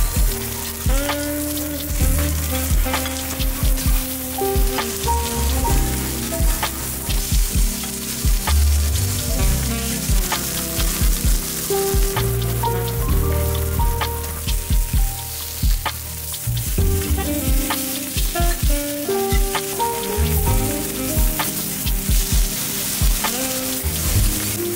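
Kobe beef and vegetable slices sizzling in beef fat on a steel teppanyaki griddle, a steady hiss. Background music with a steady beat and melody plays over it.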